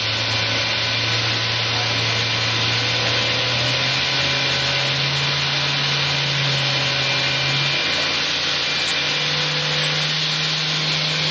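1995 Fadal 4020HT vertical machining center's spindle running with no cut, its low hum stepping up in pitch about four seconds in and again near nine seconds as the speed is raised toward its 7,500 RPM maximum, over a steady hiss.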